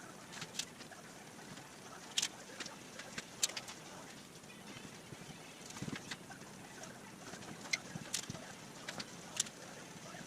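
Cardboard being handled and worked: faint, irregular sharp clicks and light scrapes, roughly one a second, with uneven gaps.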